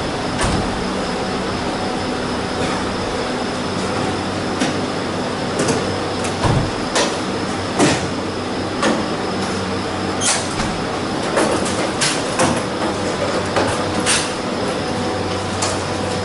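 Steady hum of idling ambulances, with repeated sharp clicks and knocks of ambulance doors and a wheeled stretcher being handled, most of them in the second half.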